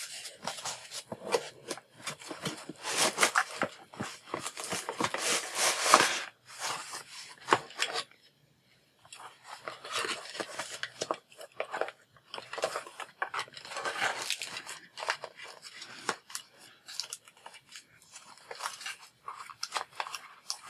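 A foam packing sheet and a cardboard box rustling, crinkling and scraping as an item is packed back into the box by hand, with a brief pause about eight seconds in.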